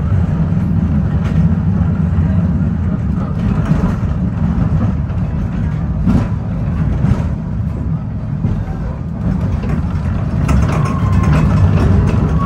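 Heritage tram running, a steady low rumble from the car and its wheels on the rails, with a few sharp knocks.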